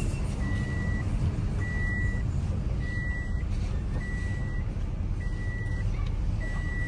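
An electronic warning beeper sounds six even, high beeps, each about half a second long and a little over a second apart, over the low rumble of a car moving slowly.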